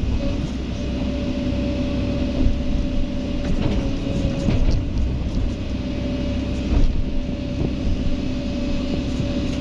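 A Kobelco SK excavator working, its diesel engine running steadily with a constant high tone, and a few short knocks.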